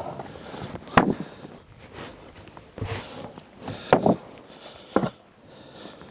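Footsteps: a handful of separate steps, roughly one a second.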